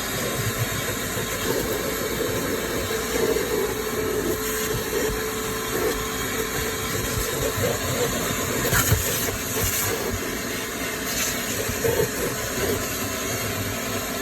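Ridgid WD0319 cordless 3-gallon vacuum running steadily with a constant motor whine while its nozzle works a car's floor, sucking up dirt with a few short rattles and clicks.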